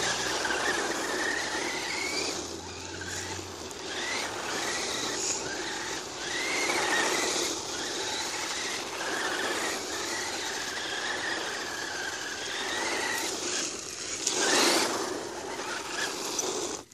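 Himoto 1:10 electric RC monster truck's motor and drivetrain whining, the pitch wavering up and down with the throttle, over the hiss of its tyres scrubbing through sand and grit as it spins donuts. A louder surge about fourteen seconds in.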